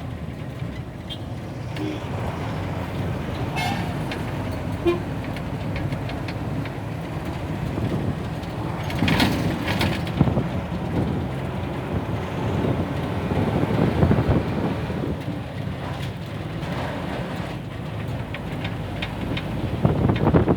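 Diesel engine of a Tamil Nadu government bus running steadily under way, heard from inside the cabin with road noise and rattles. A horn toots briefly, and the noise surges around the middle.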